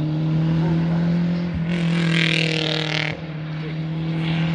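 Rally car engine held at steady high revs on the special stage, with about a second of hissing noise about two seconds in.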